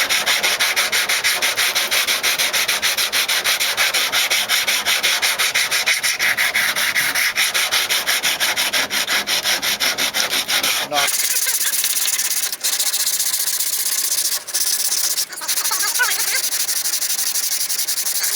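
Cured body filler on a car's rear panel being sanded by hand with sandpaper, in rapid, even back-and-forth strokes. About eleven seconds in, the sound changes to a steadier, thinner scraping hiss with a few short breaks.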